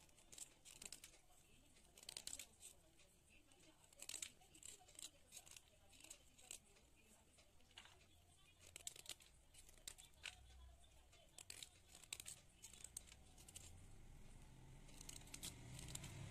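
Faint knife blade scraping and shaving white chalk sticks: a run of short, irregular scratches. A low hum comes in near the end.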